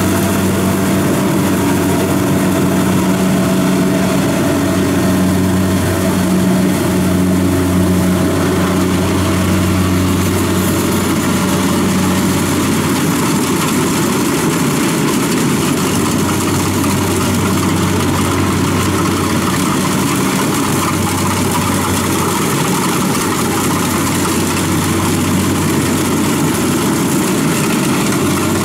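Kubota DC-70 combine harvester's diesel engine running steadily with a low hum while it cuts and threshes rice in a wet paddy; the tone shifts slightly about twelve seconds in.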